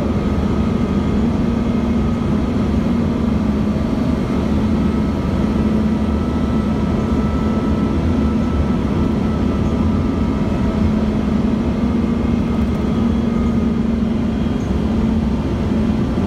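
Inside a 2006 Gillig BRT transit bus under way: its Cummins ISL diesel engine and drivetrain drone steadily over road rumble, their pitch holding even as at a steady cruising speed.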